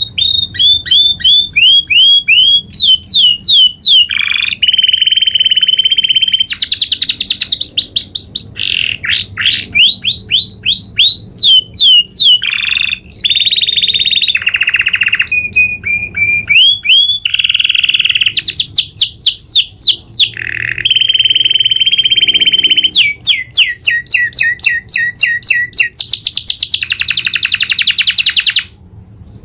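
Domestic canary singing a long, unbroken rolling song: fast trills of rapidly repeated high notes, each phrase changing to a new roll every second or so, with a short break near the end.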